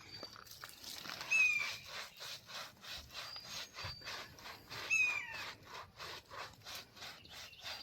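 Hands scrubbing shampoo into a wet dog's coat: rhythmic rubbing strokes, about three a second. Twice a short, high falling squeal cuts through, about a second and a half in and again about five seconds in.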